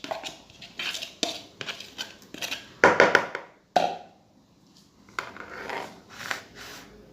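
A spoon clinking and scraping against a bowl in a run of short knocks, with a louder, longer scrape about three seconds in.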